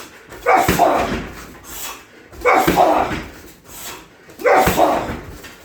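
Three hard strikes landing on a 60 kg heavy bag, about two seconds apart, each a sudden impact with a short tail.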